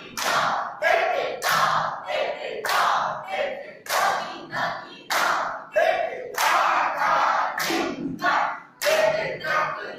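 A group of voices chanting rhythmic syllables in unison, with sharp hand claps about twice a second keeping the beat.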